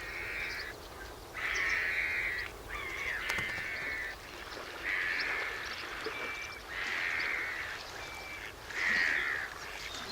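Great crested grebes calling: a run of about six harsh, rasping calls, each half a second to a second long, with a few short thin piping whistles between them.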